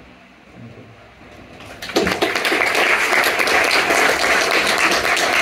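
Audience applauding, breaking out suddenly about two seconds in and carrying on as dense clapping.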